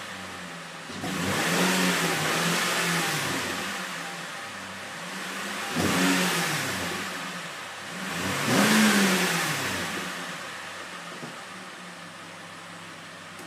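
2009 Pontiac G6 exhaust as the engine is revved three times from idle. Each rev climbs and drops back to idle: the first, about a second in, is held longest, and the two short blips come near the middle. It settles back to a steady idle for the last few seconds.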